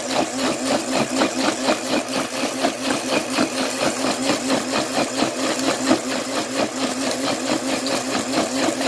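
Hamilton Beach countertop blender running steadily, blending soaked sea moss and distilled water, its motor humming with a fast, even pulsing.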